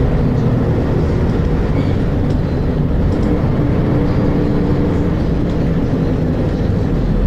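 Volvo B10BLE bus diesel engine running with a steady, loud deep rumble and a pitched drone that drifts slightly partway through.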